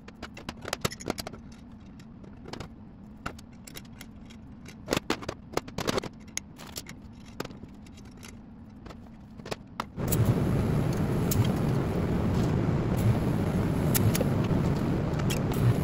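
Steel parts and hardware clinking and scraping on a steel table. About ten seconds in, an arc welder strikes up and runs with a loud, steady crackle as a leg is welded to the base plate.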